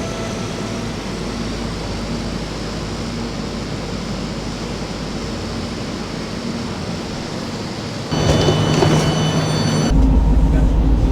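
S-Bahn train in an underground station: a steady rumble with faint whining tones. About eight seconds in it gets louder, with several high squealing tones, and near the end a strong deep rumble takes over.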